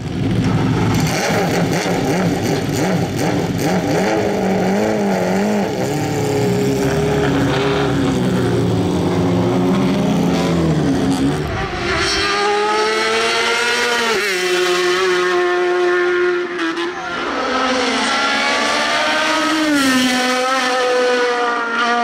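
Sports prototype race cars' engines rumbling and blipping, then one accelerating hard up the hill: a high-revving engine note that climbs in pitch and drops sharply at each upshift, three gear changes in quick succession.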